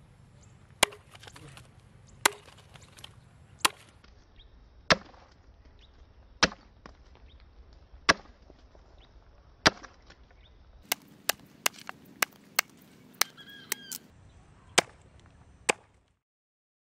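Machete blade chopping through a green plant stalk and into a wooden board beneath it: single sharp chops about every one and a half seconds, then a quicker run of about eight chops, and two more near the end.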